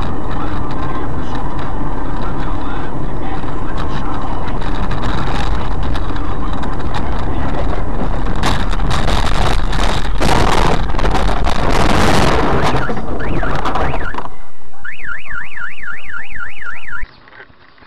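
Loud, dense rushing noise with a cluster of knocks and bangs from about eight to thirteen seconds in, then a car alarm warbling fast for about two seconds before the sound cuts off.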